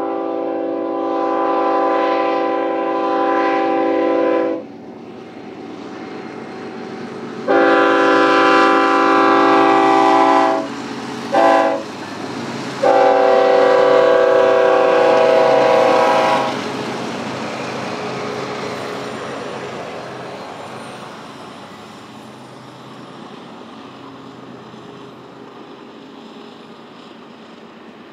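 BNSF freight locomotive's multi-chime air horn sounding the grade-crossing signal, long, long, short, long, over the rumble of the train. After the last blast the intermodal train's cars keep rolling past and slowly fade away.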